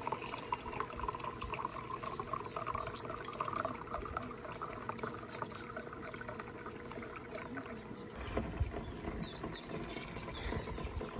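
Mezcal poured from a bottle into a glass measuring jug, a steady trickle as the jug fills. About eight seconds in, the sound turns lower and splashier as the mezcal is poured from the jug into a pot of boiling tamarind water.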